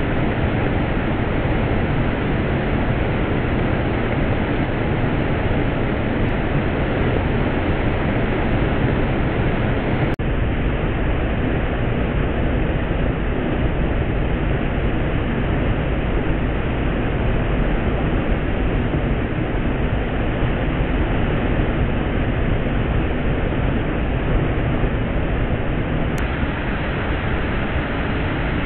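Floodwater pouring over a weir and churning below it: a steady, deep rushing noise with no breaks, the highs cut off.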